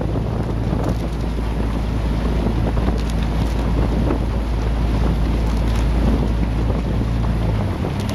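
Wind buffeting the microphone as a heavy, steady low rumble that drops away near the end, over the even drone of a motor boat running alongside.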